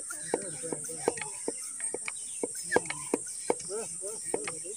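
Hand pump of a small bottle pressure sprayer being worked, a click at each stroke, about two and a half a second, building pressure in the bottle for spraying. A steady high insect trill runs behind it.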